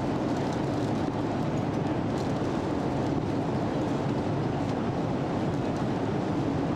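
Steady cabin noise of an airliner in cruise flight: the even, deep rush of engines and airflow as heard from inside the cabin.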